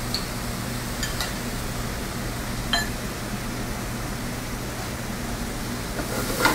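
Steady hiss and low hum of a commercial kitchen's ventilation, with light metal clinks about a second in and one ringing clink near three seconds in.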